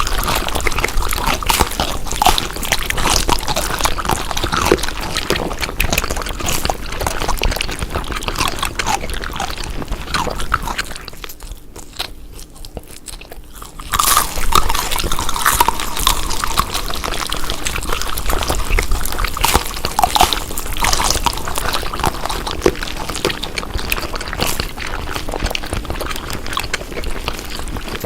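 Close-up chewing and biting of food: a dense run of crunches and small clicks. It dips quieter about eleven seconds in and picks up again about three seconds later.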